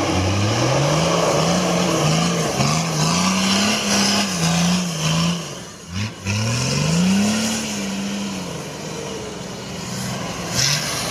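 Off-road competition vehicle's engine revving up and down over and over as it works along a trail. About six seconds in it briefly drops away, revs up again, then settles to a steadier drone.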